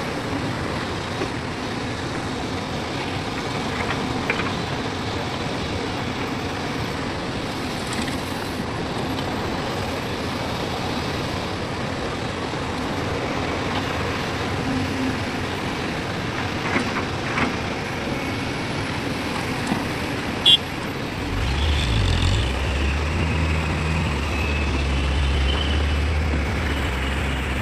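Heavy diesel machinery and dump trucks running steadily, with a few short clanks and one sharp knock. About three-quarters of the way through, a deeper, louder engine note comes in close with a higher whine over it and holds.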